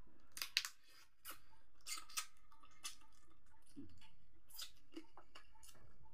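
A person eating mud crab by hand, close to the microphone: chewing and crunching crab meat and shell, heard as an irregular string of short, sharp clicks and crunches.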